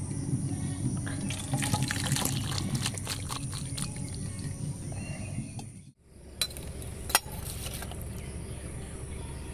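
Thick curry pouring from a metal pot into a steel bowl, with wet spattering and small metal clinks. After a break about six seconds in, a few sharp clinks of a metal spoon against the steel bowl, one much louder than the rest.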